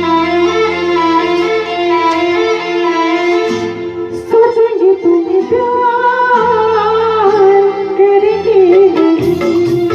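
Music: a melody of long, wavering held notes over a lower accompaniment of changing bass notes.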